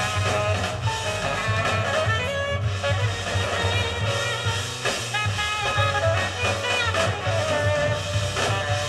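Jazz played back from a vinyl record through a 300B single-ended valve amplifier and Altec 604E loudspeakers, heard in the room: saxophone and brass over drums and a pulsing bass.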